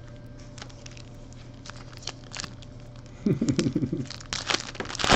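Foil wrapper of a football trading card pack crinkling and tearing as it is picked up and opened by hand, in scattered short crackles that get busier and louder in the second half.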